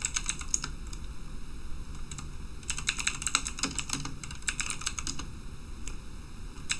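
Computer keyboard typing in short bursts of rapid keystrokes, with brief pauses between the bursts.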